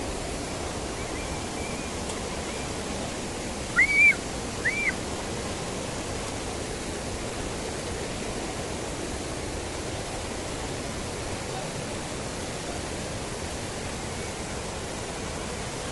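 Steady rush of a mountain stream. About four seconds in come two short, loud chirps that rise and fall in pitch, about a second apart.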